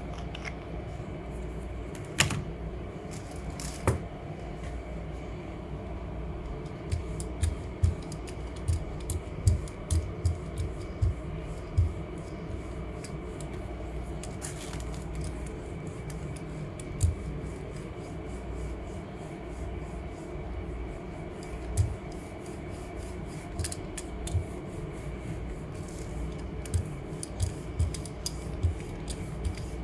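A hand brayer rolled back and forth over a gel printing plate, spreading dots of paint into a thin layer: a rubbing sound with scattered light clicks and knocks, which come thicker from about seven seconds in.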